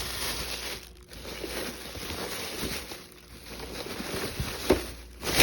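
Rustling and crinkling of packaging being handled as a vacuum cleaner is unboxed, with a couple of sharper knocks near the end.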